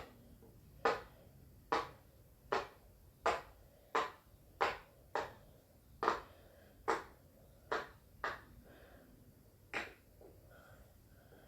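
Silicone Pop It fidget toy bubbles being pressed one at a time, giving a steady run of soft pops about one every three-quarters of a second, with a longer pause near the end.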